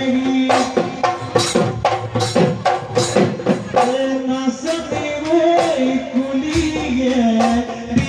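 Live Bihu music: dhol drums beaten in quick, frequent strokes under a held, wavering melody line.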